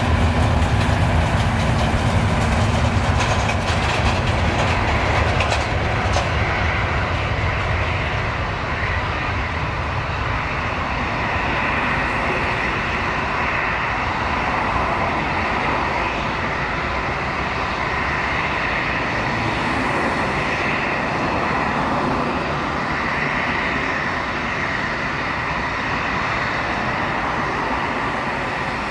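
Twin jet engines of an Airbus A320-family airliner at takeoff power during the takeoff roll: a steady roar with a whine from the fans. The deep rumble is strongest for the first several seconds and eases as the plane rolls away down the runway.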